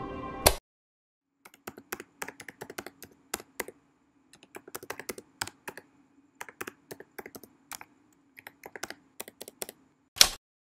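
Computer keyboard typing: a run of irregular key clicks lasting about eight seconds, ending in one louder key strike. A single sharp hit comes about half a second in, before the typing starts.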